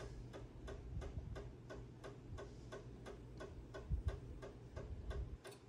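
Steady, rapid, even ticking, about four ticks a second, over a low rumble, with a dull thump about four seconds in.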